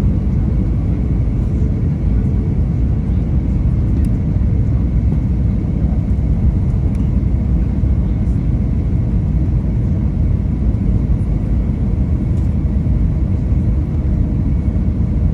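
Cabin noise of an Airbus A320neo with Pratt & Whitney PW1100G geared turbofans in flight: a steady, loud low rumble of engines and airflow with a faint constant whine.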